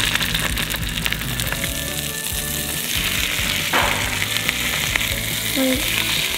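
Salmon fillets sizzling and crackling in hot ghee as they are laid one by one into a skillet to sear, with a fresh surge of sizzle about four seconds in as another fillet goes in.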